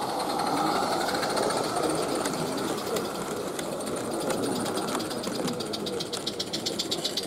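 Small-scale garden railway rolling stock running on track: wheels clatter in a fast, even clicking that gets louder near the end.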